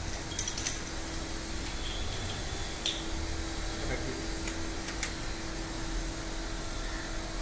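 Manual coil-spring compressor on a car strut being tightened with a ratchet wrench, compressing the spring further: a handful of sharp metal clicks, spread apart, over a steady hum.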